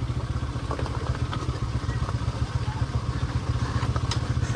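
Motorcycle engine running at low speed over a rough rocky trail, a rapid, steady low pulsing, with a few knocks as the bike jolts over loose stones.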